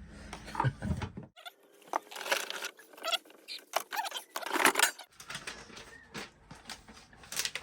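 Paper or packaging rustling and crinkling as it is handled: an irregular run of small crackles and scratches.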